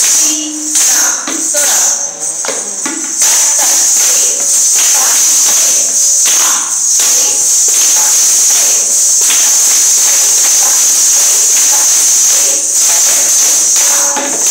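Ghungroo ankle bells on several Kathak dancers jingling with their stamping footwork. Separate sharp jingling strikes come first, then from about three seconds in a continuous shimmering jingle as the dancers turn.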